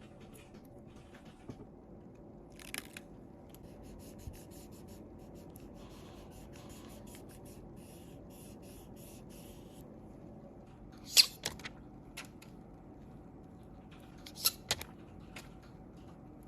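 Small hand tools handling phone parts on a repair bench: a run of quick light ticks and scrapes through the middle, then two sharp clicks, one about two-thirds of the way through and one near the end, each followed by a couple of smaller clicks, over a steady low hum.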